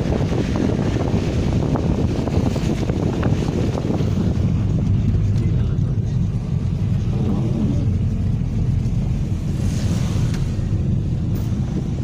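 Steady low rumble of a car driving, heard from inside the cabin, with tyre noise from a wet, snowy road.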